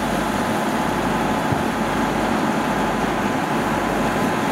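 Kubota DC70 rice combine harvester running steadily at working speed, an even mechanical din from its diesel engine and threshing gear.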